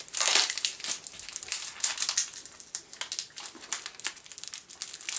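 Gift-wrapping paper crinkling and rustling in quick, irregular crackles as a small present is picked open by hand.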